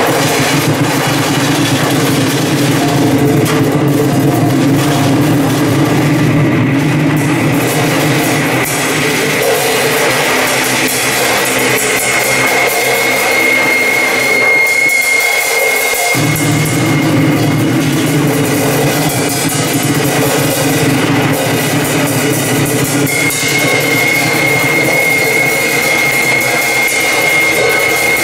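Loud, dense live noise music from amplified metal sheets and electronics, a continuous wash with a steady high whine over a low drone. The low drone cuts out for a moment about halfway through and then comes back.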